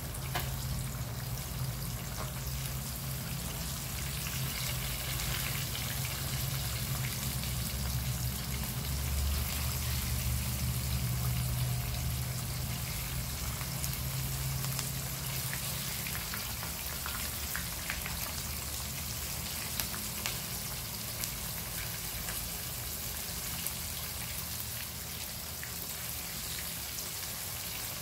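Fish steaks shallow-frying in hot oil in a wok: a steady sizzle with fine crackles and spatters. A low hum runs underneath and stops about halfway through.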